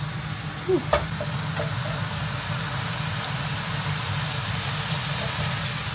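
Steady kitchen cooking noise: a low hum with an even hiss over it, the sound of an extractor fan running over food frying. Two short knocks come just before one second in.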